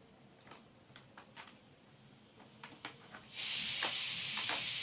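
A few light plastic clicks as a laptop battery is slid into its bay and its latch snaps into place. About three quarters of the way through, a steady high hiss starts suddenly and keeps going.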